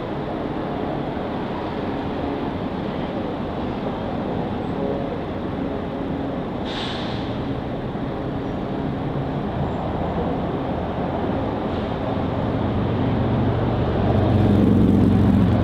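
Road traffic noise: a steady rumble of passing vehicles, with a short hiss about seven seconds in and a louder vehicle rumble building to a peak near the end as one passes close.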